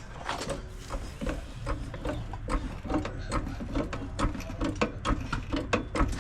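Hand ratchet wrench clicking in a steady run of sharp ratcheting clicks, about three or four a second, as bolts are worked on a car.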